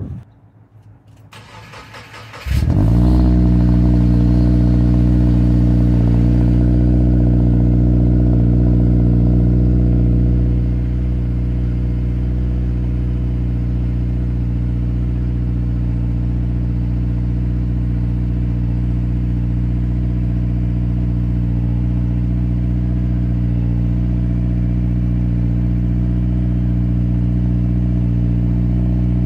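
2020 Subaru Crosstrek's 2.0-litre flat-four, breathing through a Nameless Executive axle-back exhaust, cranks briefly and catches about two and a half seconds in. It runs at a steady cold-start fast idle, which drops back a little and gets slightly quieter about ten seconds in.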